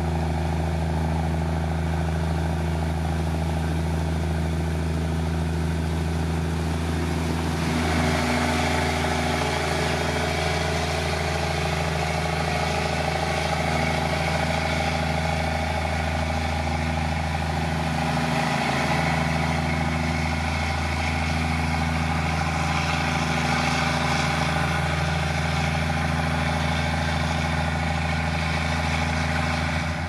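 Diesel engine of heavy road-construction machinery running steadily, with a deep hum. About eight seconds in it turns harsher and fuller, as though working under more load.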